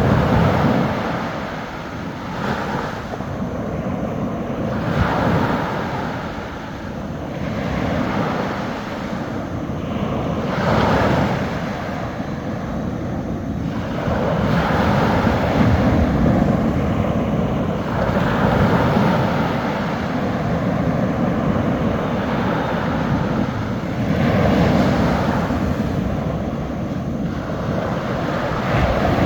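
Small sea waves breaking and washing up a beach, a new surge every two to three seconds, the sound growing steadier and a little louder about halfway through.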